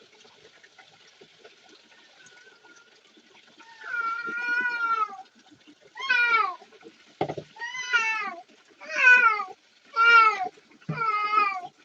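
A cat meowing six times in a row, starting about four seconds in, each call rising and then falling in pitch. There are two short low knocks between calls.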